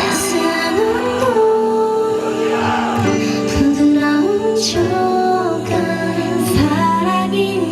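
K-pop girl-group song with several female voices singing over a backing track, played loud through a sound system.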